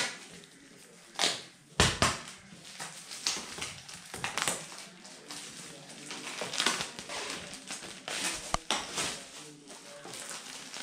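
Clear plastic shrink wrap being torn and peeled off a cardboard box, crinkling and crackling in irregular bursts, with a couple of sharp snaps, about two seconds in and again near the end.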